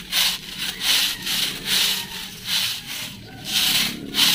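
A broom brushing dry, dead creeping fig leaves off a wall in quick, even swishing strokes, about two a second.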